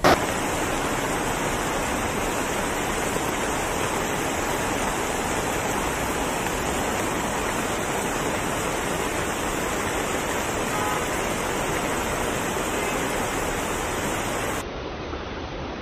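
Steady, even rushing of water, with no break in it. Near the end it suddenly drops to a quieter, duller rush.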